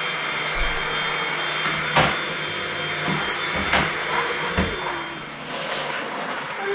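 Electric floor cleaner running with a steady hum and hiss, with a few sharp knocks between two and five seconds in.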